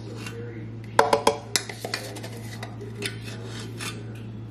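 Measuring spoon scooping baking powder from its can, with a quick run of ringing metallic clinks about a second in as it knocks against the can, then softer scrapes and clicks.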